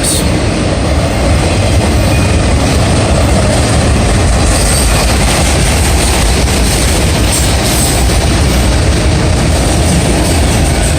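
Freight cars of a Norfolk Southern manifest train rolling past: a steady, loud rumble of steel wheels on rail.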